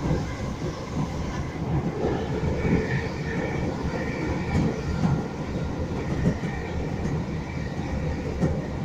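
Class 313 electric multiple unit running along the line, heard from inside the carriage: a steady rumble of wheels on rail with a few knocks over the track.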